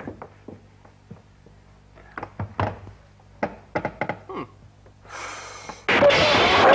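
Scattered light knocks and taps, about a dozen, irregularly spaced between about two and four and a half seconds in. A short hiss follows, then about six seconds in a sudden loud burst of noise as a fight breaks out.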